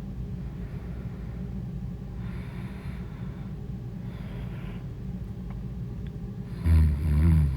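A sleeping person breathing, with airy in-breaths every couple of seconds over a steady low rumble, then a loud, low-pitched snore near the end.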